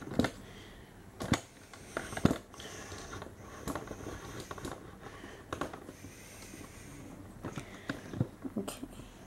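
Handling noise: irregular light clicks and taps as the diecast model car and the camera are handled, the loudest three in the first few seconds and a quick cluster near the end.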